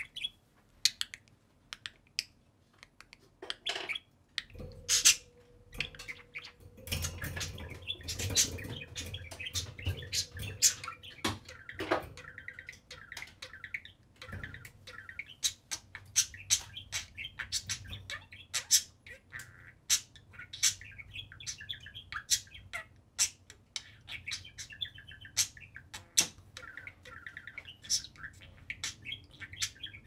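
A pair of budgerigars chattering: a busy, irregular run of short chirps, warbles and sharp clicks.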